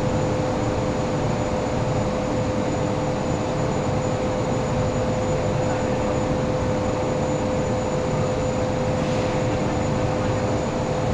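Workshop machinery running steadily: an electric motor's even hum with a clear steady whine, with no strokes or knocks.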